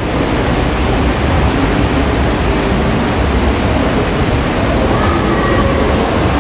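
Steady rushing noise with no clear rhythm or breaks.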